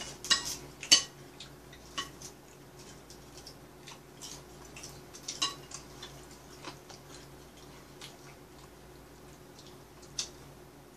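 Scattered light clicks and taps of chopsticks on plates and foil, a few in the first second and then sparse ones every second or two, over a steady low hum.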